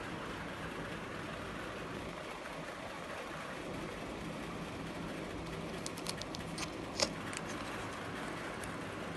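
A few light clicks and taps, typical of a phone and its box being handled during unboxing, clustered about six to seven seconds in over a steady background hiss.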